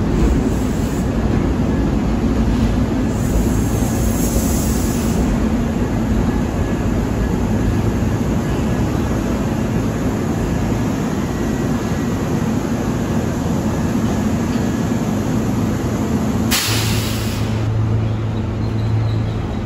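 Kintetsu 30000 series Vista Car electric train running slowly along the platform as it pulls in, a steady rumble of wheels and traction equipment. Near the end a sudden short hiss, then a steady low hum from the standing train.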